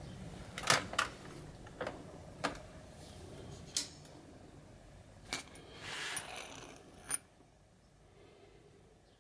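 Steel chasing punches and a chasing hammer clinking as they are handled and laid down: about eight sharp, irregularly spaced metallic clicks, with a short scrape about six seconds in.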